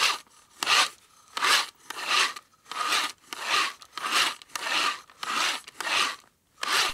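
A hand tool rasping on wood in even back-and-forth strokes, about ten in all, roughly three every two seconds.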